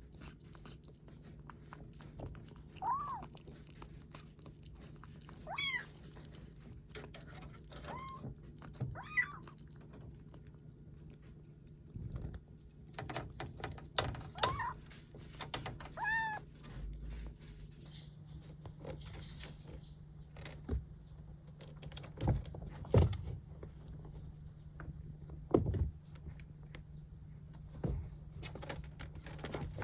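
Young kittens mewing: about six short, high, arching meows spread over the first half, followed by scattered knocks and thuds.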